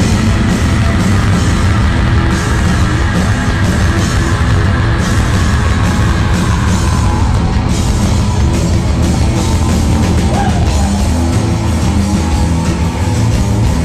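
Live hard rock band playing loudly: distorted electric guitars, bass and a drum kit, heard from the audience floor of a club.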